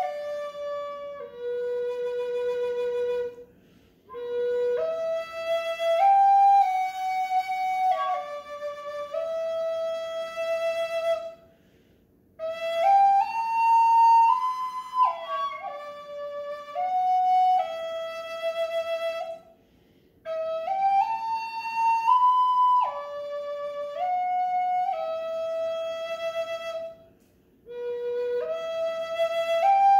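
Wooden Native American flute playing a slow melody in stepwise phrases of several seconds, each ending in a short pause for breath; some held notes waver.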